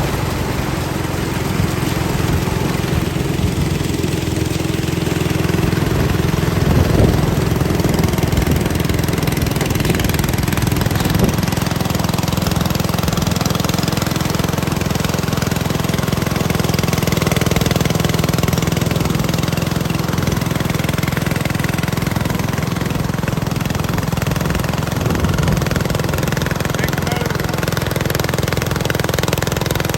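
Small engine running steadily at an even speed, with a couple of brief knocks about seven and eleven seconds in.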